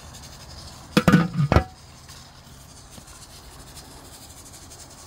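A glass pot lid clinking and clattering against the rim of a metal pot, a quick cluster of sharp ringing knocks about a second in that lasts about half a second.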